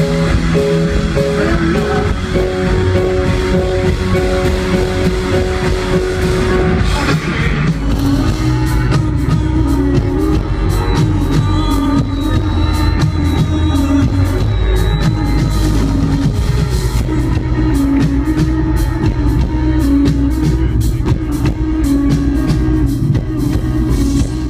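Live rock band playing at full volume: held chords for the first several seconds, then the drum kit comes in with steady beats and cymbal hits under guitars and keyboards.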